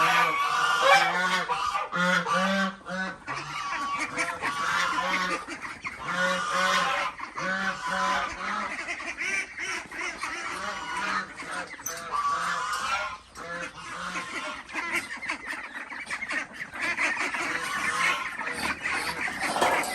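A large flock of farmed ducks quacking continuously, many calls overlapping at once.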